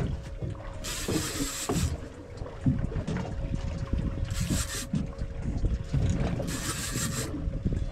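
Wind and water noise aboard a small offshore fishing boat over a steady low hum, with three gusts of hiss: about a second in, around four and a half seconds, and near seven seconds.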